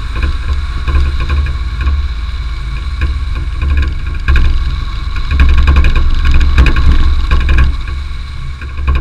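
Car driving along a loose gravel road: engine running under a heavy rumble of tyres on gravel, with scattered clicks of stones, getting louder about halfway through.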